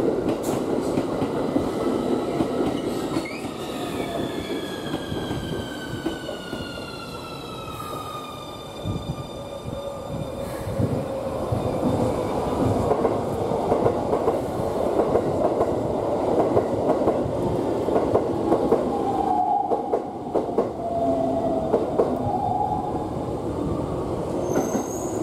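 Keikyu electric train running, with steady wheel and rail noise. From a few seconds in, the traction inverter's whine falls slowly in pitch for several seconds, as when the motors are slowing the train. Short squealing tones come near the end.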